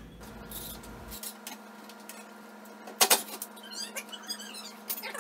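Cordless drill and metal trim of a built-in wall microwave being worked on: a sharp double knock about three seconds in, then about a second of high chirping squeaks.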